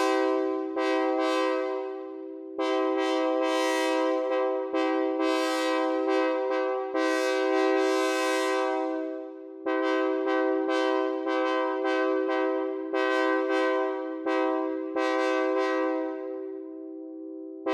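Synthesized train horn sounding a steady multi-note chord in a rapid series of blasts, some short and some held for a second or two, each starting abruptly at the same pitch.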